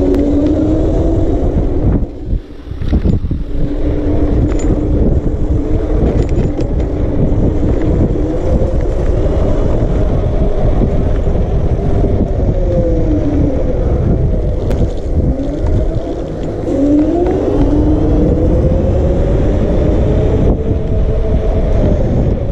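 Electric scooter hub motors whining while riding, the pitch rising and falling with speed, over heavy wind rumble on the microphone.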